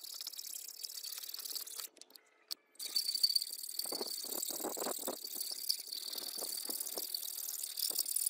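Hand file rasping over the rusted steel tang of a sword clamped in a vise, in a run of quick back-and-forth strokes that starts about halfway through. A steady high hiss runs underneath, broken briefly about two seconds in.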